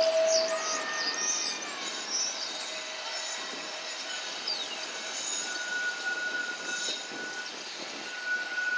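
Blackpool Centenary-class tram 648's steel wheels squealing against the rails as it takes a curve in the track. The squeal comes as several drawn-out, high-pitched notes that start and stop, with a higher note held twice in the second half.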